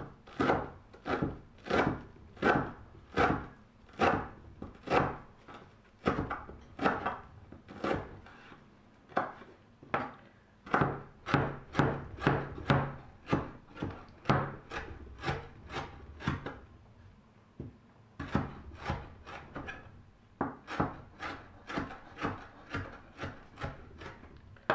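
Kitchen knife finely chopping fresh parsley and dill on a wooden cutting board: a steady run of sharp knocks of the blade on the board, about two a second, with a short break about two-thirds of the way through.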